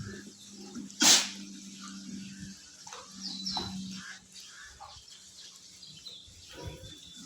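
Pigs grunting and snuffling in a pen, with one loud, short burst of noise about a second in, like a snort or sneeze. Small birds chirp twice in the background.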